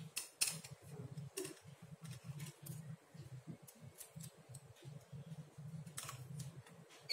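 Knitting needles clicking and tapping against each other at an irregular pace as plain (knit) stitches are worked, with soft rustling of the yarn underneath.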